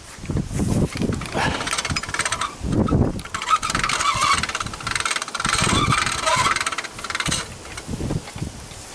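Steel hive cart rattling and clanking as it is pushed over uneven grass, with irregular low thumps from the wheels and frame; the rattle sets in about a second in and stops near the end.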